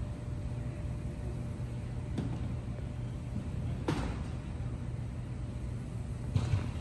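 Steady low outdoor rumble, like city traffic or wind, with three short knocks about two, four and six and a half seconds in.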